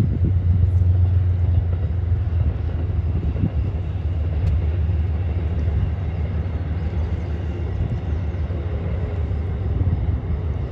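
Steady low rumble of a diesel-hauled passenger train running along the far shore of a wide river, with wind buffeting the microphone.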